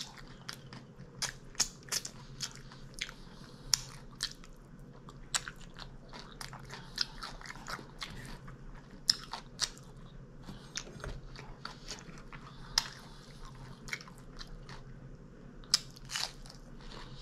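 Close-miked chewing with irregular crisp crunches and wet mouth clicks: someone eating a plate of soul food, mukbang style.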